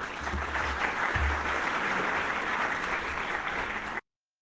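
Audience applauding steadily, cut off abruptly about four seconds in.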